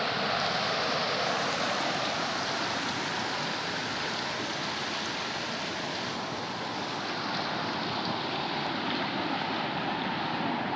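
Fast river current rushing steadily over rapids.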